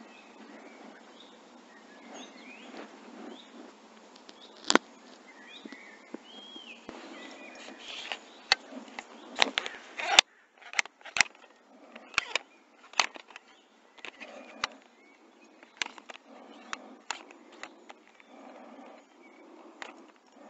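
Birds chirping faintly over outdoor background noise. About halfway through, a run of sharp clicks and knocks begins, from handling close to the microphone.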